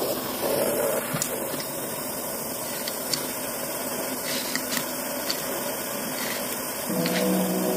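Gas torch burning with a steady rushing hiss, with a few faint ticks. Music comes back in near the end.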